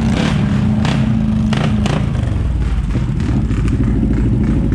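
ATV engines running as the quads churn through deep mud. A steady engine note holds for about two seconds, then gives way to a lower, closer engine rumble.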